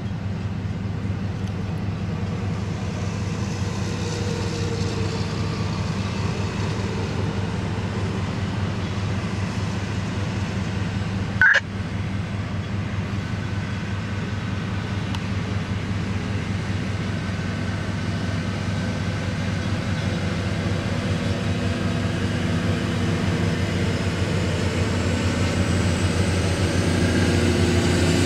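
LORAM rail grinder train passing with its diesel power running in a steady low drone, the grinding stones working the rail under it adding a rushing hiss that grows louder near the end. A single sharp clank about eleven seconds in.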